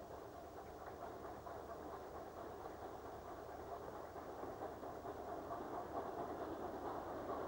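Caledonian Railway 812-class 0-6-0 steam locomotive working up a gradient with a coach, its running noise growing steadily louder as it approaches.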